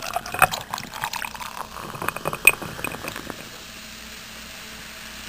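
Beer being poured into a glass, with clinks and a crackling pour for about three seconds, then a steady hiss.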